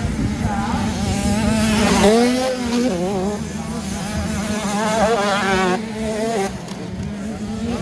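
Two-stroke 85cc motocross bikes racing on the track, their engines buzzing and revving up and down in pitch as the riders work the throttle.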